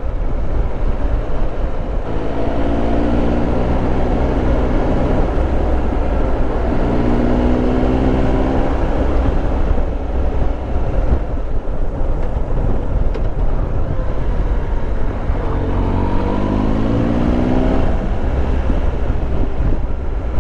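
Triumph Tiger Explorer 1200's three-cylinder engine running on the move, its pitch climbing three times as the bike accelerates, over a steady rush of wind and road noise.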